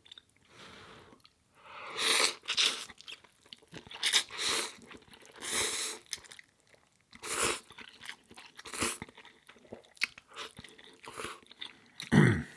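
Close-miked eating sounds: a person chewing and crunching mouthfuls of food, in short noisy bursts every second or two, with a louder burst near the end.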